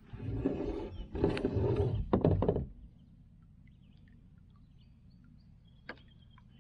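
Gear knocking and scraping against the canoe for about three seconds, ending in a few sharp knocks, then a single click near the end.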